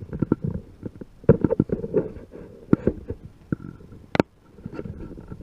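Handling noise close to the microphone: an irregular run of knocks, bumps and rustles, with one sharp click a little after four seconds in.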